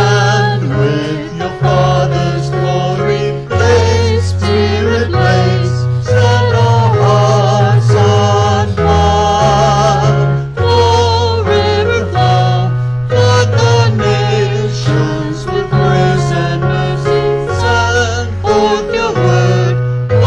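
A hymn sung by a vocalist over electric keyboard accompaniment, with sustained bass notes changing every second or two.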